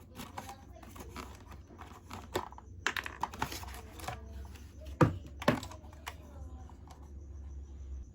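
Irregular clicks and taps of hard plastic toy parts and packaging being handled, with two louder knocks about five seconds in.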